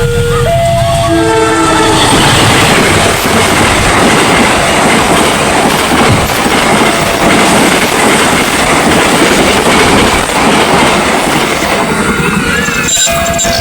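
A train passes close by with a loud rolling rumble and the clatter of wheels on the rails. The level-crossing siren's stepped electronic tones sound at the start, are drowned out by the train, and come through again near the end.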